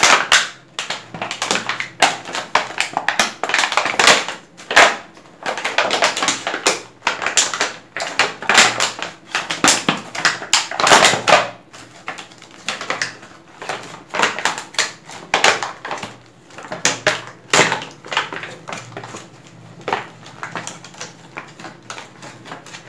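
Clear plastic packaging crinkling and crackling as a sealed pack is torn open and handled. The crackles come fast and irregular, with louder flurries now and then.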